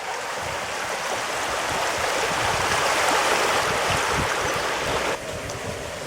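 Water rushing down a water slide beneath a rider on a tube, growing louder, then dropping off abruptly about five seconds in.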